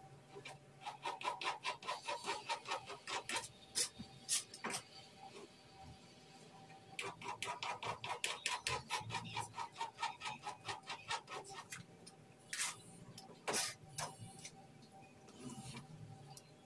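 Kitchen knife chopping carrot on a plastic cutting board: two runs of quick, even taps, about five a second, with a few single, harder chops in between and near the end.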